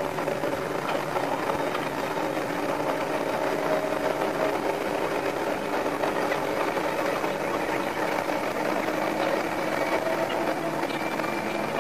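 Running noise of a Sanriku Railway 36-200 series diesel railcar, played back at five times speed: engine and wheels-on-rail noise merge into a steady mechanical drone, with a few faint tones drifting slowly in pitch.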